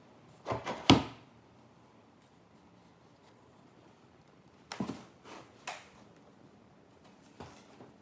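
Wooden knocks and thunks of a square wood railing post, with steel rods glued into its base, being set down into drilled holes in a wooden stair frame. A cluster of sharp knocks comes about a second in and is the loudest, then a few lighter knocks come around five seconds in and one comes near the end.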